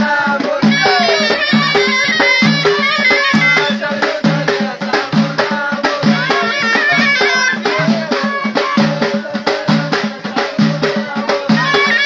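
Moroccan folk music played live: frame drums, one with jingles, beat a steady rhythm of about two strokes a second under men singing, with a ghaita shawm holding a reedy note and playing a gliding melody above it.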